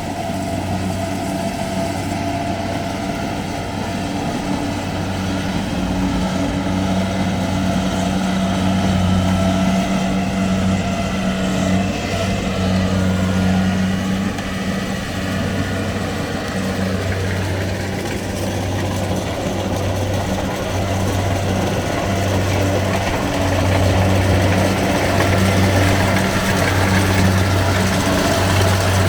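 Combine harvester engine running steadily with a low, even hum that swells and dips slightly in loudness.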